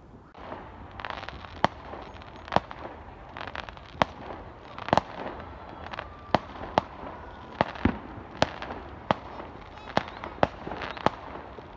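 Fireworks going off: a dozen or so sharp bangs at irregular intervals, with crackling between them.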